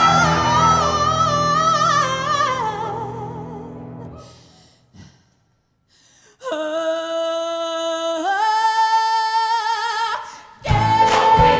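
Choral music: a song ends on a held, wavering high sung note over accompaniment that fades out about four seconds in. After a brief pause, voices sing sustained chords that step up once, then a new, louder piece with a beat starts near the end.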